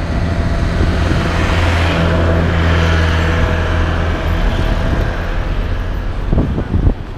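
Heavy truck engine running with a steady low drone, swelling about two seconds in and fading after about four seconds. A few knocks near the end.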